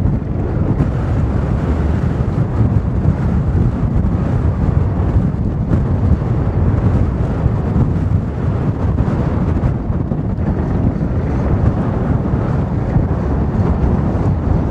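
Wind buffeting the microphone: a loud, steady low rumble that holds level throughout.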